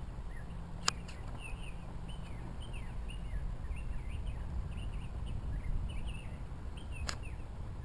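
Small birds chirping in quick repeated short notes over a steady low rumble, with two sharp clicks, one about a second in and one near the end.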